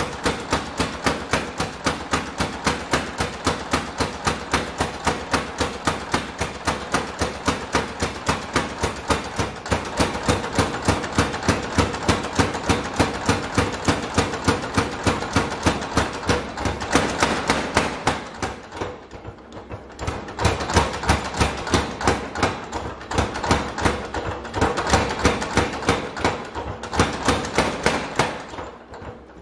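Massey 1cwt overhanging spring power hammer drawing out a red-hot steel billhook blank, striking in rapid, even blows, several a second. The blows ease off briefly about eighteen seconds in and again near the end.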